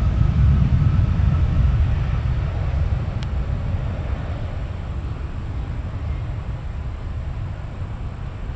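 Low rumble of a jet airliner's engines, fading steadily as the aircraft moves away, with a faint click about three seconds in.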